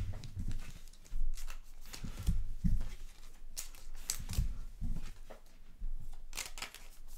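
Trading cards being handled and slid into plastic sleeves: irregular rustling and sliding scrapes, with several soft knocks on the table.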